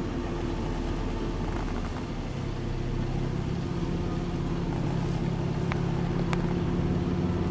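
Car engine running steadily with a low hum that strengthens about two seconds in.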